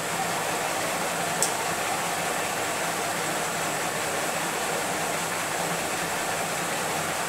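Steady hiss of even noise, with one brief click about a second and a half in.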